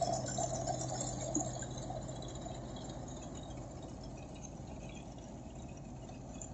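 Sonalika 750 III RX tractor engine running steadily, driving a Dasmesh straw reaper, under the rushing of the reaper's blower sending chopped straw into the trolley. The sound gets gradually quieter.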